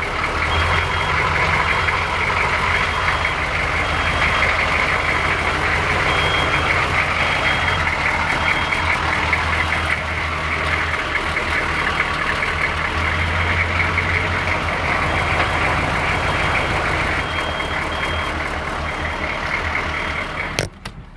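Truck diesel engine idling steadily with a clattering run. A short, high electronic beep repeats in runs over it, and the sound drops away suddenly near the end.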